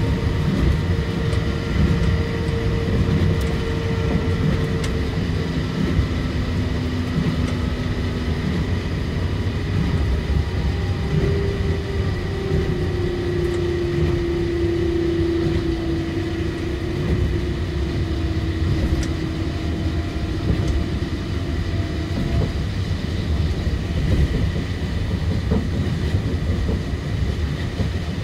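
Osaka Monorail 2000 series straddle-beam monorail train running along the track at speed, its rubber tyres giving a steady rumble. A motor whine slowly drifts in pitch over it.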